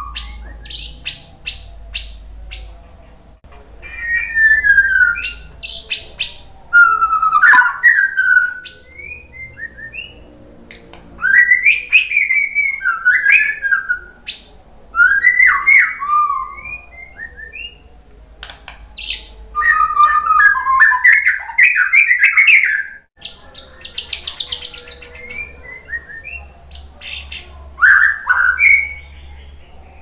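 White-rumped shama singing: loud phrases of varied, sliding whistles mixed with sharp clicking notes, broken by short pauses.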